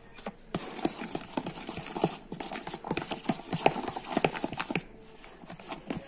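A metal fork clicking and scraping against a polystyrene tray in quick, irregular knocks as it works grated cuttlebone into soft grated carrot and egg.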